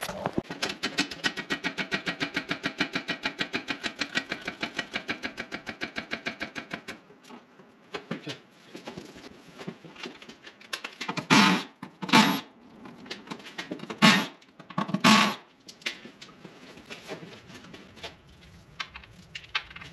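Power wrench loosening bolts on a car's transmission brackets: about seven seconds of fast, even mechanical clicking, then scattered metal clinks, then four short loud bursts of the tool a few seconds apart.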